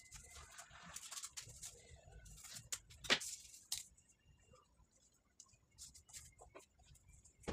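Rustling and crinkling of a thin glittery plastic film being handled on a plastic lap desk, with a few sharp clicks and taps, the loudest about three seconds in.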